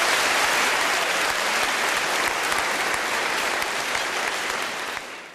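Live audience applauding at the end of a song. The applause slowly weakens and fades out quickly near the end.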